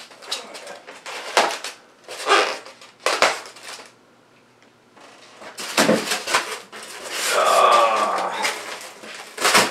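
A small knife slitting packing tape on a foam shipping box in a few short scraping strokes. After a short pause, the foam lid is pulled off, with a longer rubbing, squeaky scrape of foam on foam.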